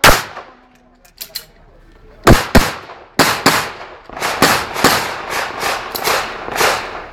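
Handgun fired in a practical-shooting course of fire: one shot, a pause of about two seconds, then about ten sharp shots, many in quick pairs, each with a short echo.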